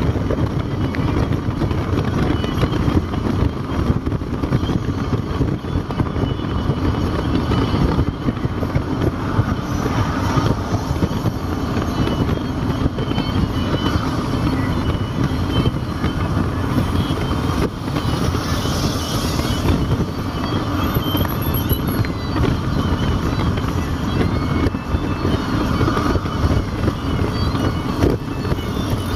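Steady road noise inside a moving car's cabin: low tyre and engine rumble at road speed.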